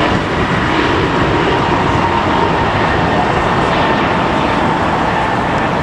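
Airbus A321 jet airliner's twin turbofan engines at climb thrust just after takeoff: a loud, steady roar with a faint steady whine above it.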